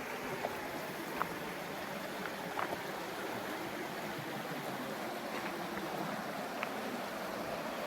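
Steady rushing water from a waterfall or creek, an even hiss with a few faint clicks over it.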